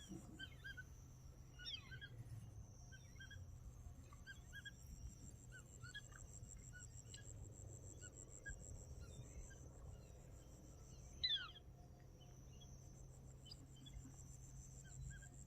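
Birds calling: many short, high chirping calls scattered throughout, with one louder call that falls in pitch about 11 seconds in, over a faint steady low hum.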